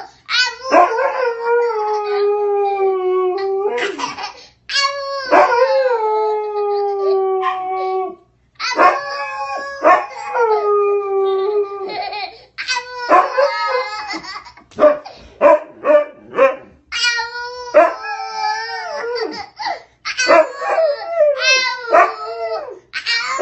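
A husky and a toddler howling back and forth, long drawn-out howls of a few seconds each that slide slightly down in pitch, with a stretch of shorter, choppier yips and calls in the middle.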